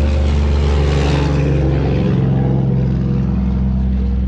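Small two-stroke chainsaw running at speed and cutting into a pumpkin; about two seconds in the cutting hiss fades and the engine note drops.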